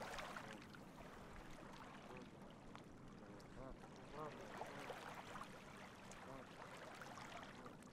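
Near silence: faint, even background hiss.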